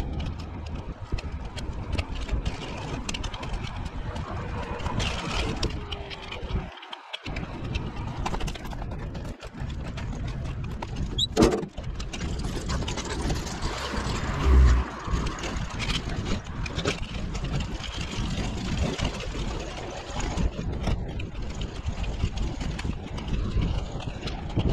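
Sped-up time-lapse audio of outdoor skating: a continuous rushing noise broken by many clicks and abrupt cuts. There is a brief dropout about seven seconds in and a couple of louder knocks around the middle.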